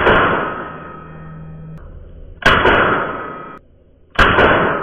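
Browning SA-22 semi-automatic .22 LR rifle fired three times, the second shot about two and a half seconds after the first and the third under two seconds later. Each sharp crack trails off in a ringing echo in a small indoor range.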